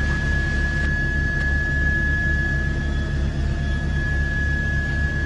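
Helicopter cabin noise picked up on the crew's headset microphone: a steady low drone with an even pulsing, and a steady high-pitched whine over it.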